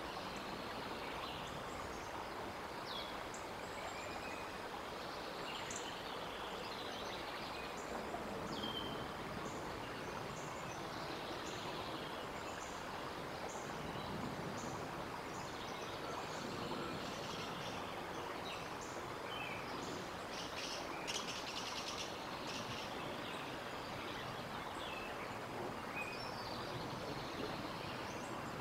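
Outdoor nest-cam ambience: a steady background hiss with many short, high songbird chirps and calls scattered throughout, and a quick rapid trill about three-quarters of the way through.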